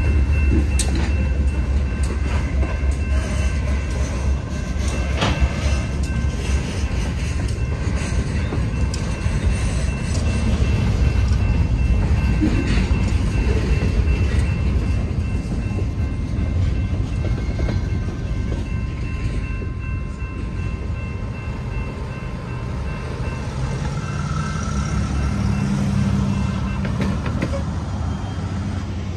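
A freight train of covered hopper cars rolls slowly over a road grade crossing, its wheels clicking and clacking over the crossing and rail joints. A diesel locomotive's low rumble is strongest in the first few seconds. The crossing signal bell rings steadily until the last car clears near the end.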